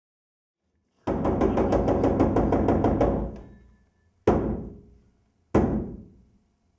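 Percussive music: a fast roll of struck notes for about two seconds that dies away, then two single loud hits, each left to ring out for about a second, and a third right at the end.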